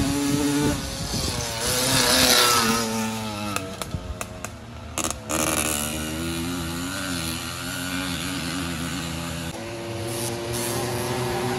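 Small two-stroke moped engines of racing motorized bicycles running at once, their pitches rising and falling as they pass in the first few seconds, then droning more steadily.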